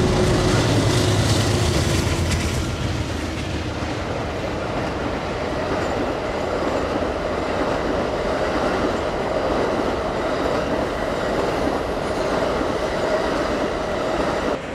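Amtrak Auto Train passing close by. Its two lead diesel locomotives rumble past in the first few seconds with a steady engine tone. Then the long string of bilevel Superliner passenger cars rolls by with steady wheel-on-rail noise.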